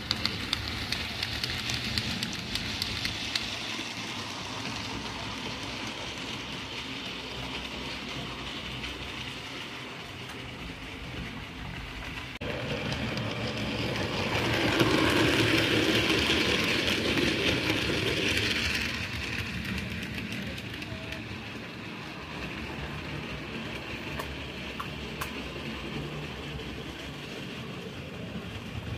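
Model railway locomotives running on the track: a steady whir of small motors and the rattle of wheels on rail, swelling louder midway as a train passes close by.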